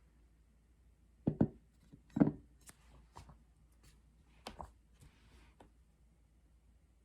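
A few sudden knocks and clicks of small objects being handled in a quiet small room: two close knocks about a second in, the loudest a moment later, then softer scattered clicks until near the end.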